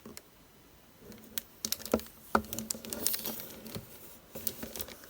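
Irregular light clicks and taps of a small plastic model display case being handled, starting about a second in.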